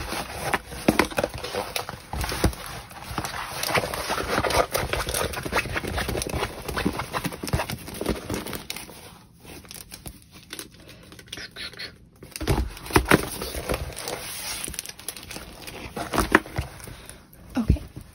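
Crinkling and rustling of a rolled diamond painting canvas and its plastic cover being handled, with scattered sharp clicks and taps and a quieter stretch about halfway through.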